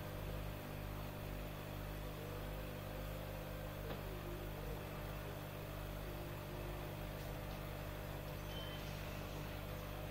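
Aquarium pump running with a steady low hum and faint hiss, with one faint click about four seconds in.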